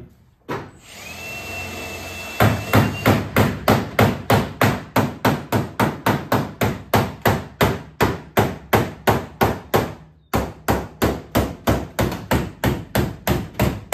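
Panel hammer striking the sheet metal of a car's rear wheel arch, hammering out the panel. The blows come evenly at about two and a half a second, with a short break about ten seconds in. A steady noise runs for the first couple of seconds before the hammering starts.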